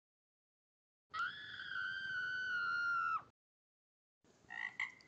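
A high-pitched scream sound effect, held for about two seconds and falling slightly in pitch. Near the end, short frog croaks begin.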